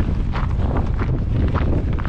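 Strong blizzard wind from the northwest buffeting the microphone: a constant, loud low rumble.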